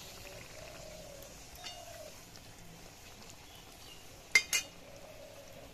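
Luchi sizzling faintly in hot oil in a metal karai, with two sharp clinks of a metal slotted spoon against the pan about four and a half seconds in.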